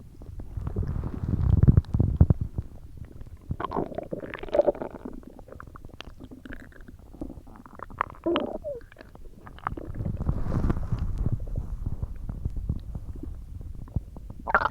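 A person's stomach growling: low rumbles, with squeaky, gurgling gliding tones in the middle stretch.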